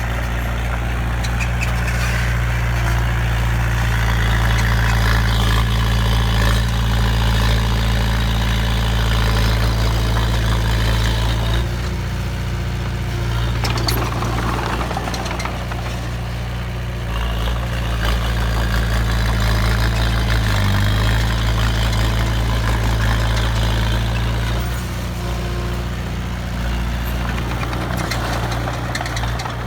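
A heavy truck or construction-machine engine running steadily with a low hum. Mid-range noise from the machine rises and falls a few times.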